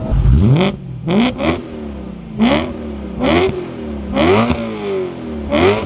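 Supercharged 4-litre V8 of a BMW E92 M3 with an Akrapovic titanium exhaust, revved in about six quick blips, each rising in pitch and falling back to idle.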